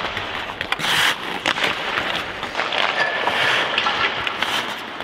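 Ice hockey skate blades scraping and carving on the ice through a hard stop and push-off, with sharp clicks scattered through.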